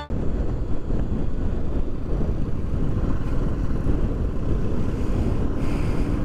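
Motorcycle riding at road speed, heard as a steady rush of wind buffeting the microphone over the bike's road noise.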